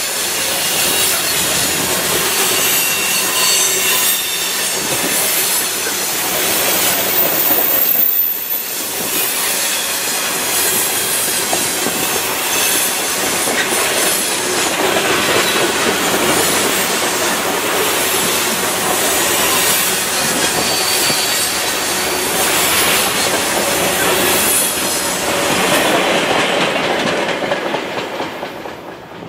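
Freight train's hopper cars rolling past on a curve: steel wheels clattering over the rail and squealing against it. The noise fades away near the end as the last car passes.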